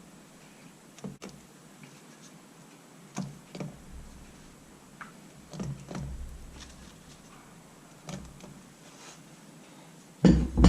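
Soft plops and knocks every second or two as fried gulab jamun dough balls are dropped one at a time into a pan of warm sugar syrup, with a louder knock near the end.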